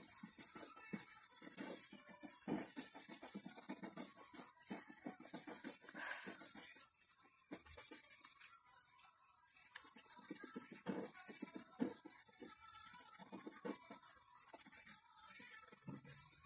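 Pencil and blending tool rubbing on drawing paper in short, irregular shading strokes.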